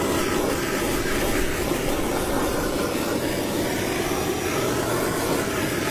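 Handheld blowtorch flame burning steadily, an even rushing noise.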